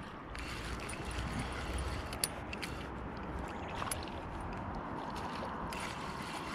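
Spinning reel being cranked to wind in a hooked fish, over a steady rushing noise, with a couple of sharp clicks about two and four seconds in.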